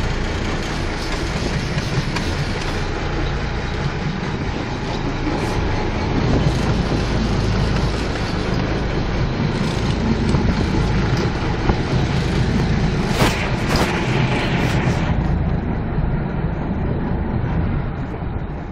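Sportfishing boat's engine running steadily with wind and water noise. A few brief, sharper noises come about two-thirds of the way in.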